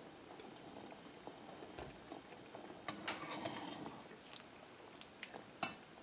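Faint clicks and soft knocks of a metal spoon against a cooking pot as boiled potato pieces are scooped out of the water and set into a glass bowl, a handful of separate taps.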